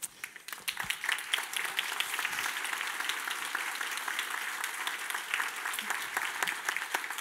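A large audience applauding: dense clapping that starts at once and keeps up steadily.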